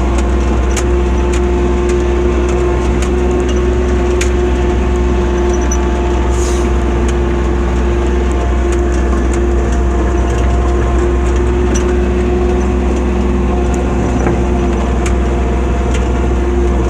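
ATV engine running at a steady speed while riding, with a few light clicks and knocks scattered through it.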